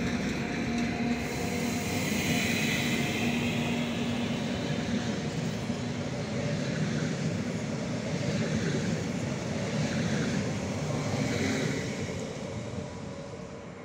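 Leo Express Stadler FLIRT electric multiple unit passing through the station: a steady rumble of wheels on rail with a steady hum and a brief high whine a few seconds in. The sound fades over the last couple of seconds as the train draws away.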